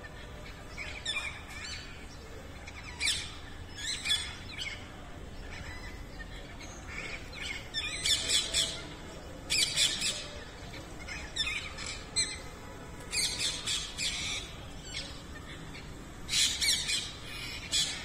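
Rose-ringed parakeets giving harsh, screeching squawks in short bursts every second or two, several birds squabbling over a nest hole in a wall.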